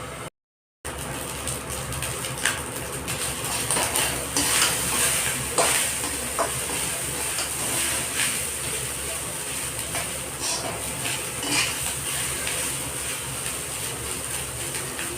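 Rice frying in a pan with a steady sizzle, stirred with a spatula that scrapes and clicks against the pan many times. The sound drops out briefly just after the start.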